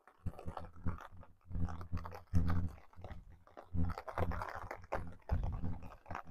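Wind gusting against the phone's microphone, giving an irregular, uneven low rumble that comes and goes in short bursts.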